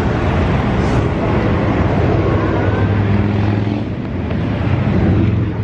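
A vehicle engine idling steadily close by, a low hum that grows stronger about three seconds in.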